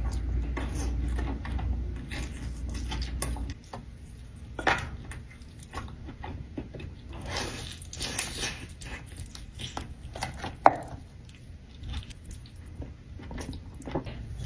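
Close-miked eating of a buttery seafood boil: wet chewing and irregular crackling and snapping of shells, with two sharper cracks about 5 and 11 seconds in.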